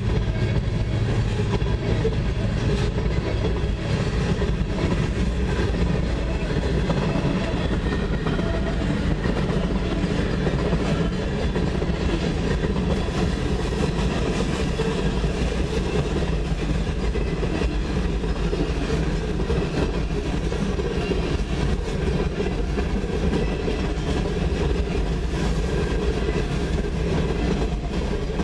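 Freight cars, open hoppers and boxcars, rolling past: a steady, unbroken noise of steel wheels on the rails.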